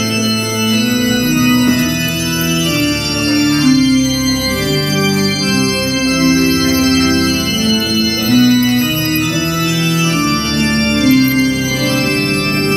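Organ music: slow wedding music of long held chords and a melody that moves from note to note about once a second.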